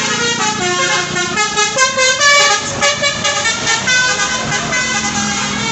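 Bus 'telolet' horn, a set of multi-tone air horns, playing a quick tune: chords of short notes that jump to new pitches several times a second, without pause.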